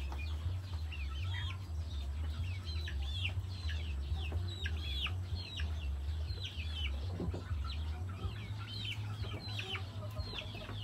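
Chickens chirping, many short high peeps each falling in pitch, over a low fluttering rumble from a sheet of cardboard being fanned over a charcoal stove.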